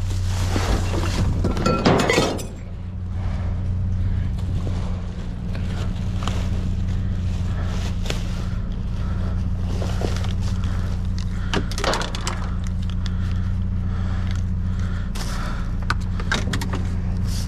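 Dry-rotted plastic buckets cracking and clattering for about two seconds, then scattered knocks and rattles of junk being handled, over a steady low hum.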